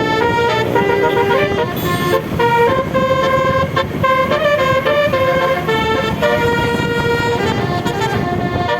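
A bus's roof-mounted 12-note telolet air horn (multi-trumpet 'basuri' horn) playing a melody of quick stepping notes over a steady low rumble.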